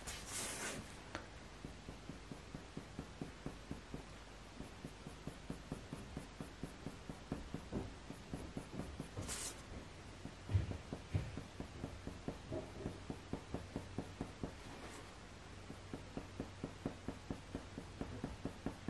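Faber-Castell Polychromos coloured pencil making quick, tiny fur strokes on hot-press watercolour paper: a faint, light scratching in a steady rhythm of about three strokes a second. Two soft bumps come about halfway through.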